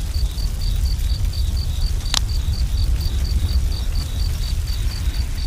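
Night-ambience sound effect of crickets chirping steadily, about four chirps a second, over a low rumble, with a single sharp crack a little after two seconds in.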